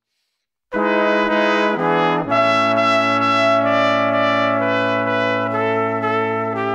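Background music: brass instruments playing slow, sustained chords that change every second or so, starting suddenly just under a second in after a moment of silence.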